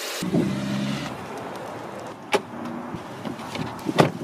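A car engine starts about a quarter second in and runs steadily, with a hiss at first and a few sharp clicks later.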